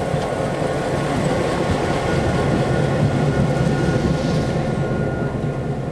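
Diesel locomotive passing close by, its engine running and steel wheels rolling on the rails. It grows loudest about three seconds in and fades as it goes past.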